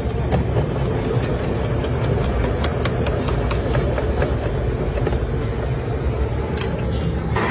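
Steady low rumble of machine or street noise, with scattered light clicks and scrapes from a hand-cranked spiral potato cutter screwing a skewered potato through its blade.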